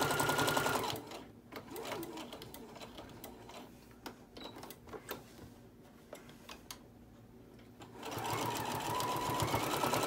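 Electric sewing machine stitching through layers of patchwork fabric with a fast, even ticking, stopping about a second in. A few seconds of soft clicks and fabric handling follow while the piece is turned at a corner, then the machine starts stitching again near the end.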